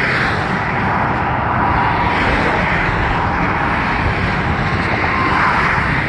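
Steady rush of fast-moving freeway traffic, cars and their tyres going past at speed, swelling slightly as individual vehicles pass.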